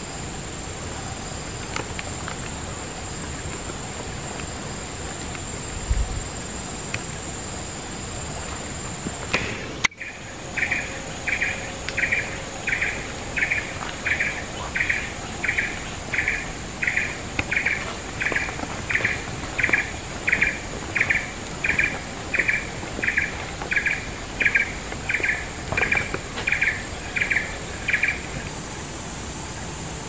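Insects droning with a steady high whine. After a brief break about ten seconds in, a clear call repeats evenly, about twice a second, for some eighteen seconds and then stops.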